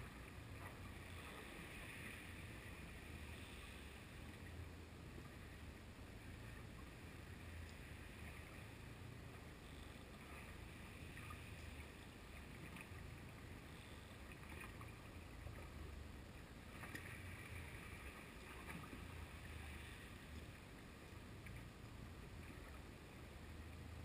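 Muffled underwater sound picked up through a GoPro's waterproof housing on a jig: a low steady rumble with faint hiss and a few faint ticks.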